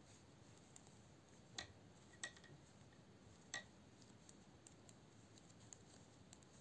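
Two knitting needles clicking faintly while stitches are worked: three soft clicks over near silence, one about a second and a half in, one just after two seconds and one about three and a half seconds in.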